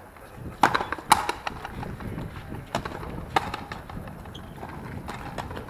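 Frontenis rally: the rubber ball cracking off the players' rackets and bouncing off the frontón wall and floor, a string of sharp, irregular knocks, the loudest about a second in.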